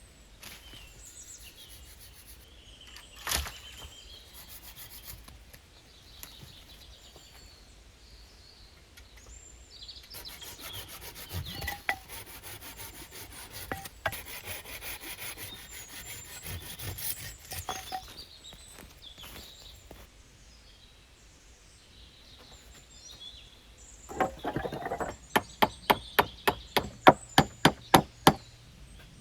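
Hand-tool work on wood: scraping and rasping strokes, like sawing or shaving wood, with a single knock early on. Near the end comes a quick run of about a dozen sharp strikes, about four a second.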